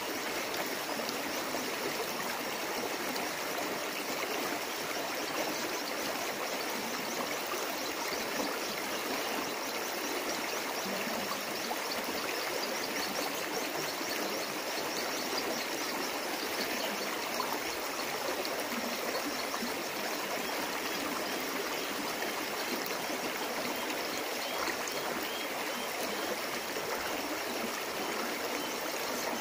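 Shallow stream running over rocks and stones, a steady, even rush of water with no breaks.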